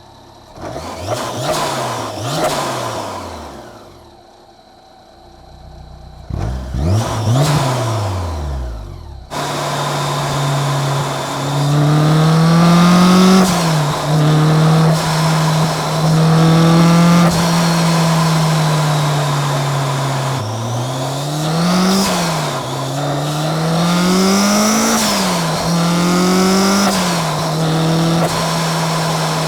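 Supercharged Honda S2000's 2.2-litre four-cylinder engine revved up and down twice. It then runs continuously through several acceleration pulls, its pitch climbing and dropping sharply at each gear change, with the supercharger's high whine rising with the revs.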